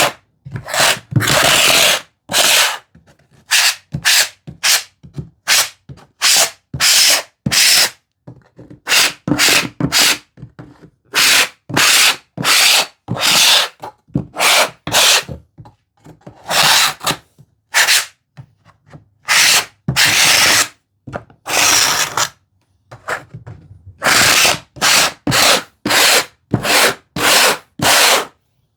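Handsaw teeth scraped across the flat backs of wooden tambour slats in repeated strokes, a stroke or two a second with short pauses, using the saw as a toothing plane to roughen the wood so the glue for the fabric backing spreads and trapped air escapes.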